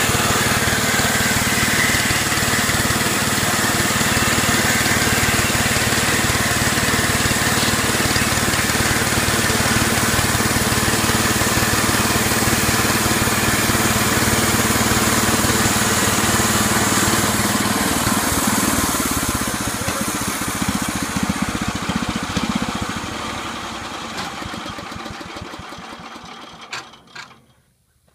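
Portable bandsaw mill's small gasoline engine running steadily as the band blade saws through teak. About two-thirds of the way in it slows and dies away, with a couple of sharp knocks just before the end.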